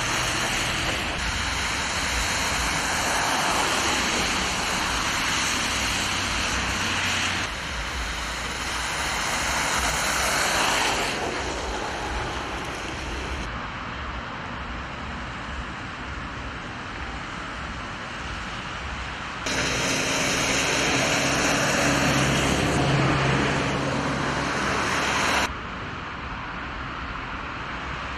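Outdoor street ambience in falling snow: a steady hiss of traffic noise that jumps suddenly in level and tone about every six seconds, with a low hum in one stretch.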